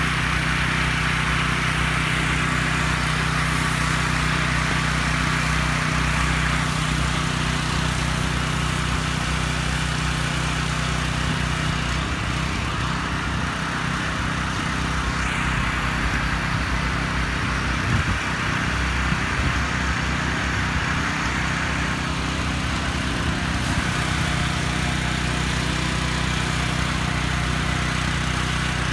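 Pressure washer running steadily: an engine hum with a hiss of spraying water over it. The hiss grows and fades several times.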